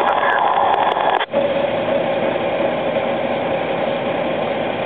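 Honda Gold Wing GL1800's flat-six engine running steadily under the rider, heard from the handlebar, with a brief dropout about a second in.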